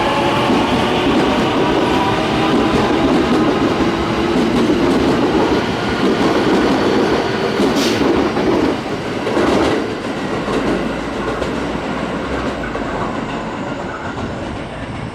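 JR West electric train on the Takarazuka Line, its motors whining with a rising pitch at the start, then the loud rumble and clatter of the cars rolling past. It fades away over the last few seconds.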